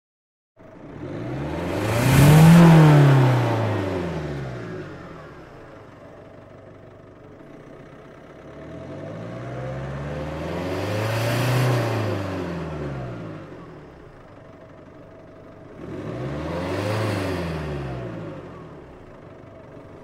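Car engine revved three times, the pitch climbing and falling back to idle between revs; the first rev, a little over two seconds in, is the loudest. The sound starts abruptly after a moment of silence.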